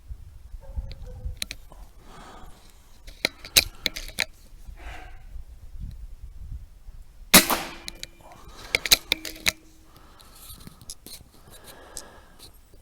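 Scattered small clicks and handling noises, then one sharp rifle shot about seven seconds in, followed by a quick run of clicks.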